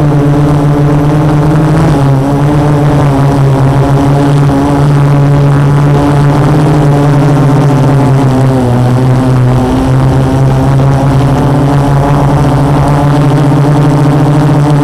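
Brushless motors and 12-inch carbon-fibre propellers of a quadcopter (Multistar 2212 920kv motors), hovering and giving a loud, steady droning hum with several stacked tones. The hum is picked up by the camera mounted on the frame and shifts slightly in pitch a couple of times.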